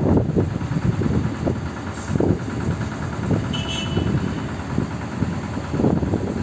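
Heavy diesel engine of a large excavator running, a dense low rumble that surges unevenly. A brief high squeak comes about three and a half seconds in.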